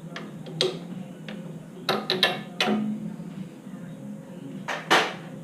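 Hand tools on a motorcycle fuel tank's bottom bolt: a few scattered metallic clicks and clinks, with a quick cluster about two seconds in and the loudest clink near the end.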